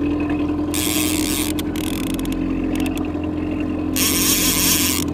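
Boat's outboard motor running steadily with an even hum. Two stretches of rushing noise come in, about a second in and again near the end.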